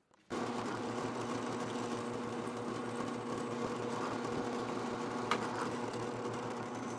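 Drill press motor running with a steady hum that starts abruptly about a third of a second in, a single sharp click about five seconds in; near the end the bit is lowered into a Damascus steel knife blank to drill a pin hole.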